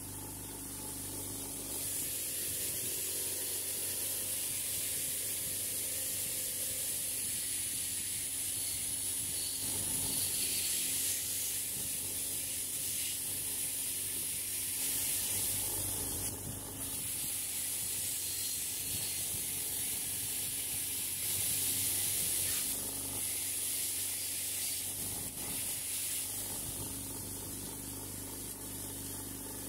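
Bench grinder running with a wire wheel, a steel spanner held against the spinning wire brush to clean it: a steady motor hum under a high scratching hiss. The hiss rises about two seconds in and eases off near the end, when the workpiece comes away from the wheel.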